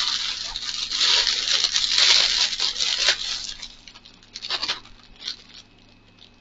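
Thin plastic packaging bag crinkling and rustling as it is handled by hand. The dense crinkling lasts about three and a half seconds, then gives way to a few scattered crackles.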